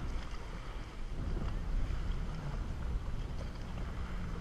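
Wind buffeting the microphone in a low, steady rumble over the running of jet ski engines and the splash of water around the hulls.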